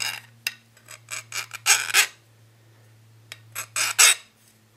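A hand file scraped in short strokes across the hardened steel outer race of a 6205 ball bearing. The strokes are loudest about two seconds in and again near four seconds. This is a file hardness test: the file skates over the race without marking it, a sign that the steel is hard enough.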